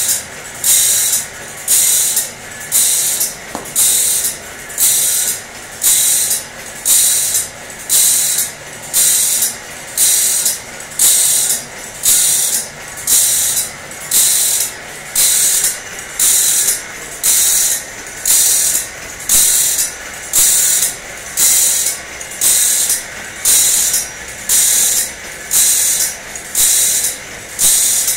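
Saw-sharpening machine grinding a saw blade's teeth one at a time, a short hissing grind about once a second in an even, unbroken rhythm over a faint steady whine.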